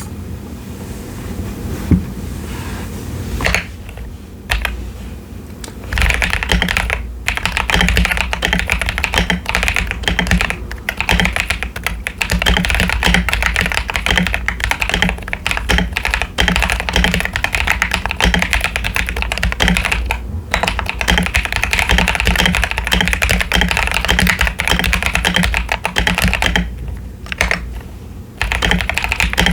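Typing on a modded CIY Tester 68 mechanical keyboard with pre-lubed Akko Lavender Purple switches and doubleshot PBT keycaps. A few scattered key presses give way, about six seconds in, to a fast, continuous run of key clicks. The run breaks off briefly twice, once near the middle and once near the end.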